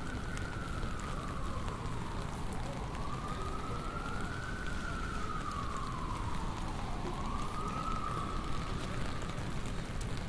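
Emergency-vehicle siren in a slow wail, its pitch rising and falling about three times, the last sweep fading out near the end, over a steady hiss of rain and city traffic rumble.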